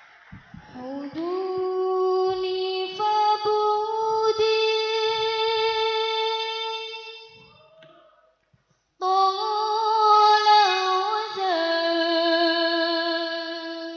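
Young voices singing an Islamic song in long, drawn-out melodic phrases with wavering held notes. There are two phrases, separated by a brief pause about eight seconds in.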